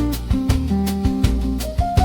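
Bossa nova lounge music: plucked guitar chords and a low bass line over a steady, light beat.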